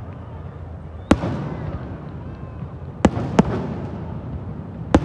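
Fireworks bursting: four sharp bangs, one about a second in, two close together around three seconds in and one near the end, each trailing off in a rolling echo.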